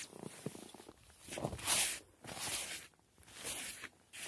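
Snow being swept off a car windshield by a gloved hand, a few rough swishes about a second apart, the loudest about a second and a half in.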